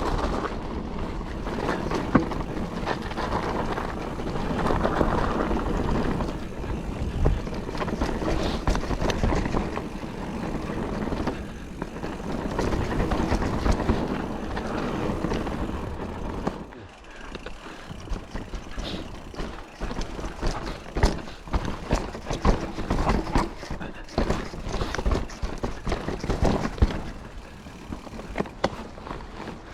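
Calibre Triple B mountain bike riding a dry, loose trail: a steady rush of tyre noise on dirt and gravel, then from a little past halfway a run of sharp knocks and rattles as the bike goes over rougher ground.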